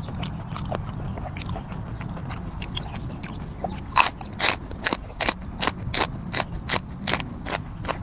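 Close-miked chewing of raw, crisp green vegetable: a loud run of sharp crunches, about three a second, starting about halfway through, after a few faint clicks.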